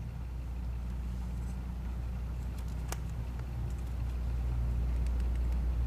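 Steady low background hum, with a single sharp click about three seconds in and a few fainter ticks from handling the motorcycle's TPS wiring plug.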